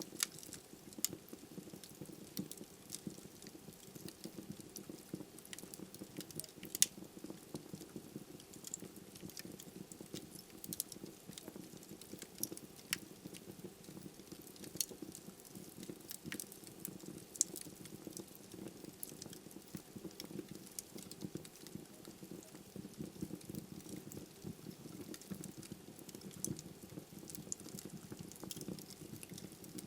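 Wood fire burning in a fireplace: a steady low rush of flame with frequent, irregular crackles and pops from the burning logs, a couple of them sharply louder.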